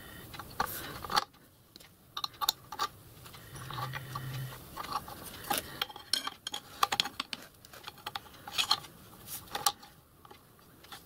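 Steel and brass lathe parts clicking and clinking irregularly as a clutch collar and steel rod are slid onto a small lathe's layshaft and pulley assembly by hand. A low background hum cuts off about a second in.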